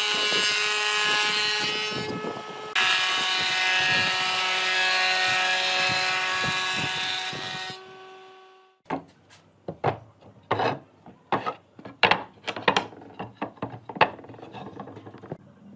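A power tool works on wood with a steady whining motor, dipping and changing pitch about two seconds in, then stops after about seven and a half seconds. After a short pause come about a dozen sharp, irregular knocks on wood.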